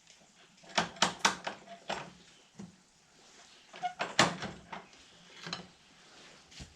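Sharp metal clicks and clanks from a sawmill band blade being worked through a manual tooth setter, with a quick run of four near the start, another cluster about four seconds in and a single one near the end.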